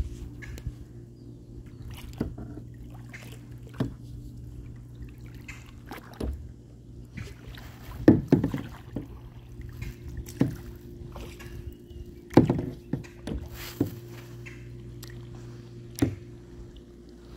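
Boat motor running with a steady hum, while water sloshes and knocks against the hull at irregular moments, loudest about eight and twelve seconds in.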